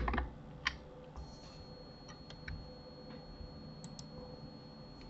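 Scattered clicks of a computer mouse and keyboard: one about half a second in, then a run of quick clicks over the next few seconds, over a faint steady hum.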